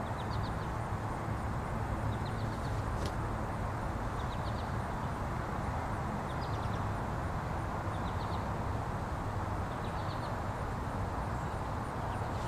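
Steady outdoor background noise, a constant even hiss with a low hum beneath, and a faint high chirping, three or four quick notes repeated every second or two.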